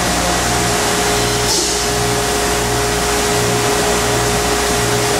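Steady industrial machinery running: an even hiss with a constant whine and a low hum that pulses on and off under a second apart. A brief extra hiss comes about a second and a half in.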